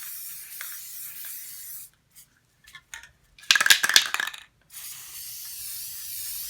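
Aerosol spray-paint can hissing in a steady spray. A little under two seconds in it stops, then after a few clicks the can is shaken hard for about a second, its mixing ball rattling loudly, and the spraying starts again.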